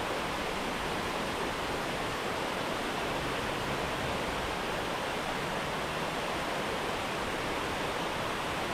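Steady rush of flowing river water, an even hiss that doesn't change.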